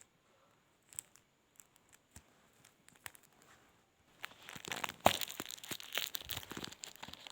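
A few light clicks and taps, then from about four seconds in, dense crinkling and tearing of an eraser's packaging as it is opened.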